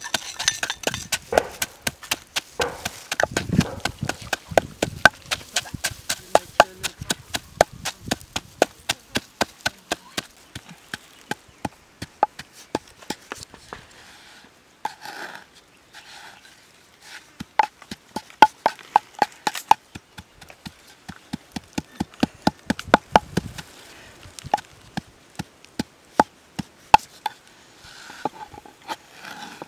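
Wooden pestle pounding salt, garlic and chili in a wooden mortar: a rapid, steady run of knocks. After a short pause about halfway through, a knife cuts limes on a wooden log, with sharp taps in short runs.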